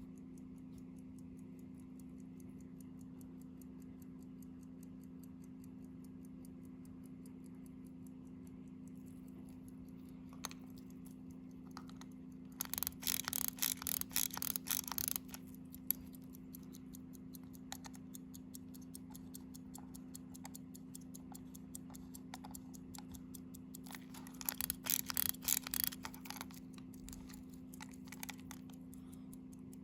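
Mechanical pocket watch movement of an antique Swiss Favre-Brandt chronograph ticking steadily and rapidly. Two stretches of louder, rapid clicking break in, about halfway through and again near the end.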